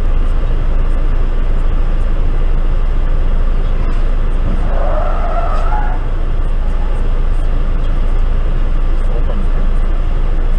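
A car driving on the road, a steady low rumble of engine and tyres. A brief higher sound, like tyres skidding, comes about five seconds in.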